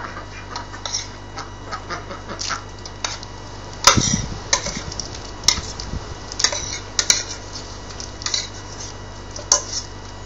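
Metal spoon knocking and scraping against a metal saucepan as cooked pasta is tipped out of it onto the ground, in a series of sharp clinks. There is a heavier thump about four seconds in.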